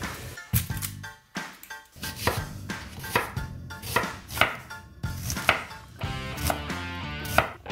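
Chef's knife chopping an onion on a wooden cutting board: a dozen or so sharp, irregularly spaced knife strikes against the board.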